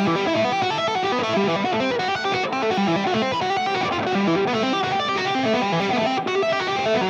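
Ibanez electric guitar playing a fast, unbroken run of notes, a passage from a long guitar solo.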